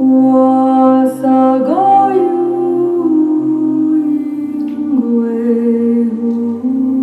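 Unaccompanied singing voice holding long, steady notes, sliding up to a higher note a little under two seconds in and back down to a lower one about five seconds in.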